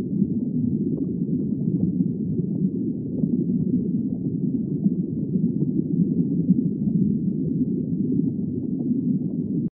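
Steady, muffled, low-pitched underwater rumble and gurgle that cuts off abruptly at the end.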